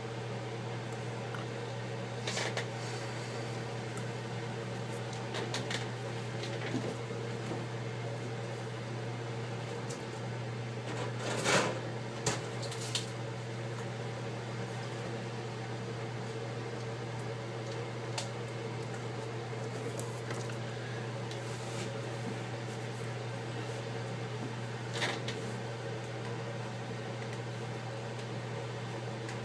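Steady low electrical or fan hum, with a handful of light clicks and taps from handling on the workbench, the loudest about halfway through.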